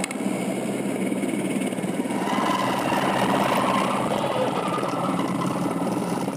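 Police helicopter's engine and rotor running steadily, a dense mechanical drone heard from on board.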